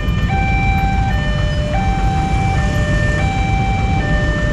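Railway level-crossing warning alarm sounding an electronic two-tone signal that switches between two pitches about every 0.7 seconds. The barrier is down and a train is approaching. Underneath, a low rumble of idling motorcycle engines in the queue.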